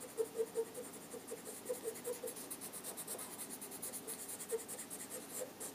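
A chalking tool rubbing chalk onto a paper piecing in quick, repeated scratchy strokes, fairly faint.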